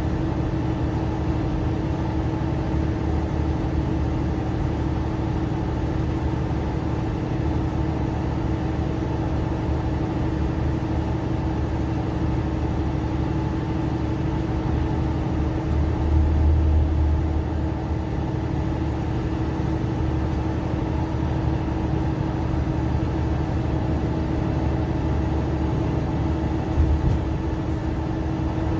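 Mercedes-Benz Citaro C2 LE city bus heard from inside the cabin while driving: steady engine drone and road rumble with a constant hum. A louder low rumble swells for about a second and a half around the middle, and there is a short knock near the end.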